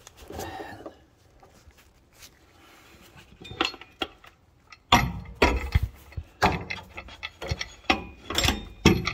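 Steel airbag-kit brackets and hardware clinking, knocking and scraping as they are worked into place against a pickup's rear suspension. Mostly quiet at first, then a run of sharp knocks and clatter from about five seconds in.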